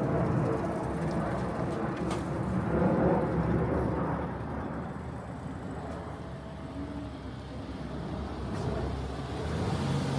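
Motor vehicle engine running on the street: a low rumble that grows louder about three seconds in, eases off in the middle and builds again near the end.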